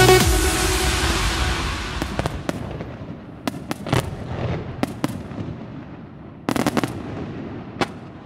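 The music dies away over the first two seconds, then fireworks go off: scattered sharp pops and bangs, some coming in quick clusters.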